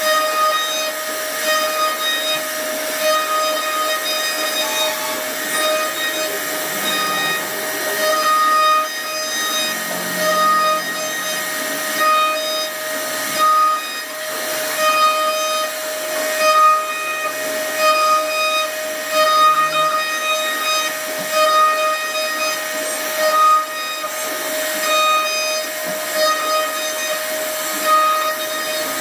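CNC router spindle running with a steady high whine while it cuts wood, with a rough cutting noise that rises and falls.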